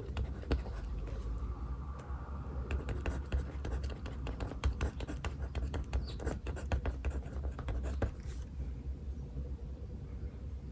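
Pen scratching across paper in quick strokes of handwriting, which stop about eight seconds in. A steady low hum runs underneath.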